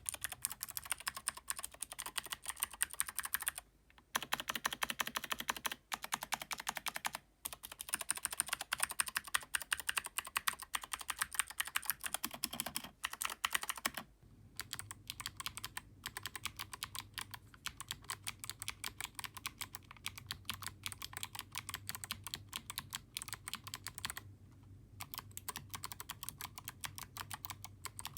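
Typing on a Keychron K2 V2 mechanical keyboard with foam fitted between the PCB and plate, clicky switches struck in quick runs with brief pauses. It starts on Gateron Blue switches, changes about halfway to heavier Kailh Box Navy switches with a fuller, deeper clack, and near the end to Kailh Box Pink switches.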